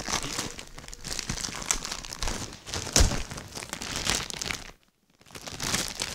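Clear plastic wrapping on a magazine crinkling and crackling as it is handled and opened, with many sharp crackles. The sound cuts out briefly about five seconds in.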